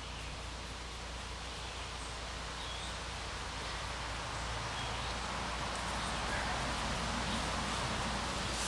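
Steady outdoor background noise that grows a little louder in the second half, with a few faint, short bird chirps.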